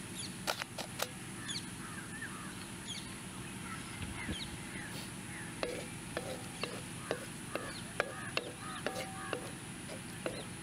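A wooden stick stirring vegetables in broth in a blackened wok, knocking and scraping against the pan in a run of sharp clicks from about halfway in, over a steady hiss.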